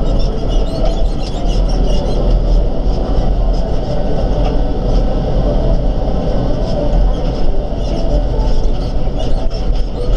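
Farm tractor running steadily, with constant rattling and clattering over the low engine rumble.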